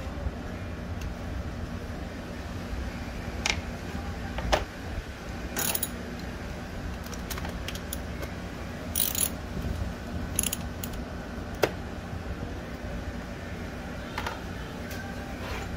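Socket wrench working a 10 mm nut: scattered metal clinks and a few short runs of ratchet clicking, over a steady low hum.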